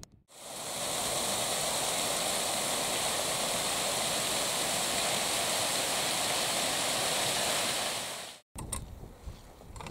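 Small waterfall pouring over rock ledges: a steady rushing splash. It fades in at the start and cuts off abruptly about eight seconds in.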